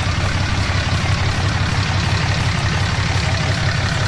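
Deleted Cummins 6.7 L inline-six turbo-diesel in a 2010 Ram idling steadily through a 4-inch turbo-back straight-pipe exhaust, a deep, even rumble.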